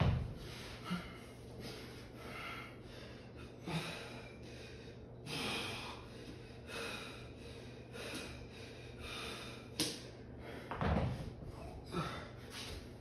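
A man breathing hard during a dumbbell workout, in gasps about once a second. There is a heavy thud at the start and another about eleven seconds in.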